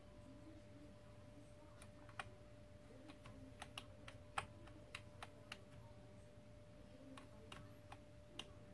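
Computer keyboard keys being pressed in scattered, irregular clicks, bunched near the middle and again near the end, over a faint steady hum.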